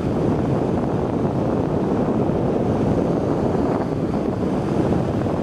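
Wind buffeting the microphone in a steady rumble, mixed with the sea washing over a rocky shore ledge.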